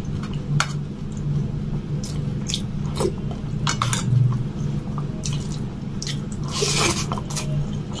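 Wet, sticky clicks and squelches of fingers mixing rice with palak paneer gravy on a steel plate, with a longer wet burst about two-thirds of the way through as a handful is lifted to the mouth. A steady low hum runs underneath.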